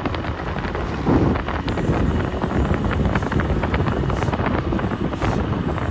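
Wind buffeting the microphone of a moving scooter, a steady rushing with fine crackle and a louder gust about a second in, with the scooter's running and road noise beneath.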